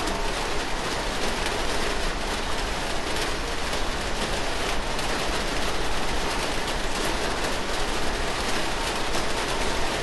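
Steady rain falling: an even hiss made of many small drop impacts, unchanging throughout.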